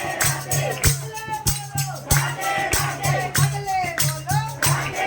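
Devotional kirtan: voices singing a bending melodic line over a steady fast beat of sharp percussion strokes and a pulsing low note.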